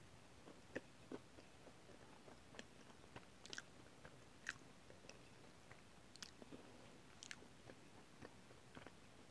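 A person chewing a mouthful of chocolate brownie close to the microphone: soft, irregular clicks and small smacks of the mouth, a few sharper ones now and then.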